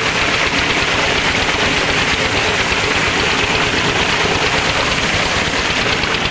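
Tubewell outlet gushing a heavy, steady stream of water into a brick tank, with the rapid even thumping of the diesel engine that drives the pump underneath.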